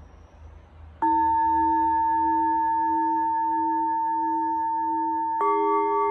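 Singing bowl struck about a second in and left ringing with a steady, sustained tone; a second, higher-pitched bowl is struck near the end, adding its tones over the first. Faint night insects chirp before the first strike.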